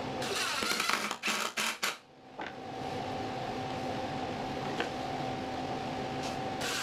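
Cordless drill/driver driving screws into plywood in short runs of whirring and rattling, one run in about the first two seconds and another starting near the end, with a steady hum underneath.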